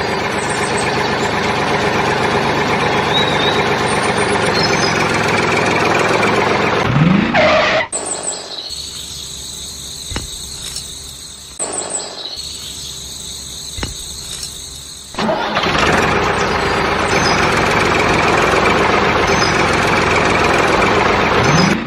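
Small engine running steadily and loudly. About eight seconds in it drops away to a quieter stretch with a few clicks, then runs loud again for the last six seconds, with brief rising whines where it changes.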